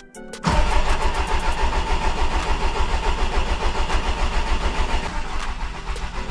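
Mk4 VW Golf TDI's 1.9-litre four-cylinder PD130 (ASZ) diesel engine cranking and firing about half a second in, then running, heard from inside the cabin. It is the first start after the fuel hoses were replaced and the fuel system primed.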